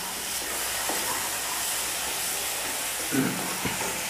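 Thick tomato-and-spice gravy sizzling in a kadhai as a steady hiss, with a few soft scrapes of a wooden spatula stirring it.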